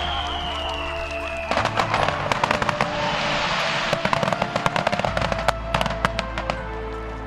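Fireworks crackling in a rapid, irregular string of sharp bangs for several seconds, after a whistling tone that slides down in pitch in the first second and a half. Background music with sustained low notes runs underneath.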